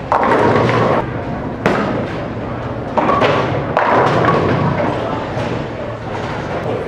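Bowling alley lanes: bowling balls striking pins, with several sudden crashes of clattering pins in the first four seconds and a steadier rumble of the lanes after that.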